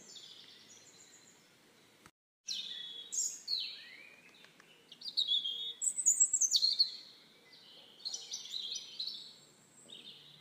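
Songbirds singing and chirping outdoors, quick varied high phrases that overlap; the sound cuts out for a moment about two seconds in.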